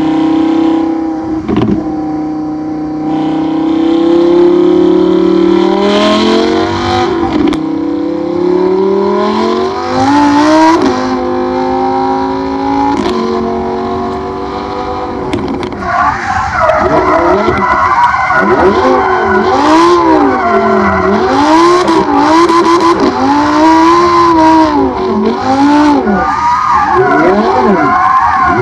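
Lamborghini Huracan V10 through a catless Fi Exhaust valvetronic system, accelerating hard with its pitch climbing and dropping at each upshift. From about halfway it revs up and down rapidly, roughly once a second, as the car drifts, with tyre squeal.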